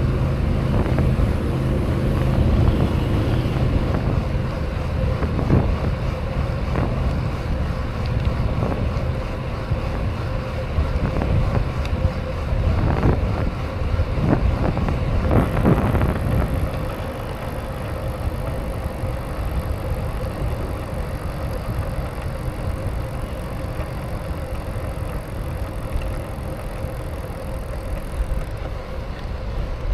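BMX bike being ridden: a steady rolling rumble with wind buffeting the microphone, and a few sharp knocks from the bike about halfway through.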